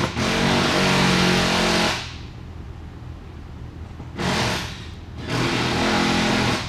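A small electric motor running in three bursts: about two seconds, then a short half-second burst, then about a second and a half, with a steady hum under a hissing rush.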